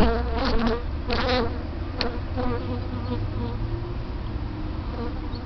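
Honeybees buzzing at their colony, a steady hum with individual bees passing close now and then, their pitch wavering, the loudest passes in the first second or so.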